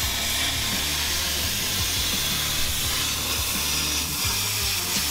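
Plasma cutter cutting through a steel bumper panel: a steady hiss of the cutting arc and air jet, with a low hum underneath.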